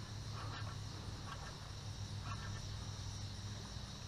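Steady high-pitched insect chorus, like summer crickets, over a low steady hum, with a few faint short chirps or clicks.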